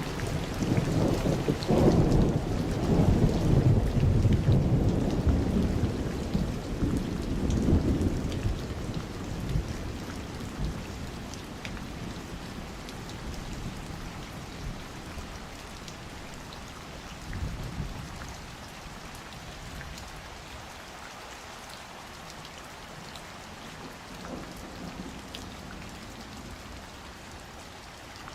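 Steady summer rain falling, with a long low roll of thunder in the first third that swells and then fades away, leaving the even patter of rain.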